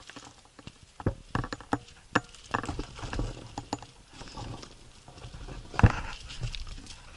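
Footsteps on loose rock and gravel: irregular scrapes and clicks, with a heavier step about six seconds in.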